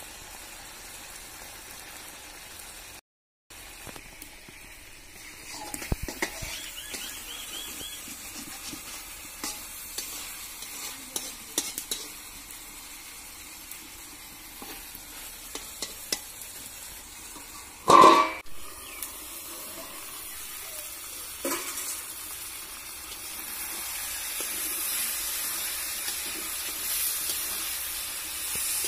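Vegetables sizzling in oil in an iron wok over a wood fire, with a metal spatula scraping and clicking against the pan as they are stirred. One loud clatter comes about two-thirds of the way through, and the hiss grows louder near the end as steam rises.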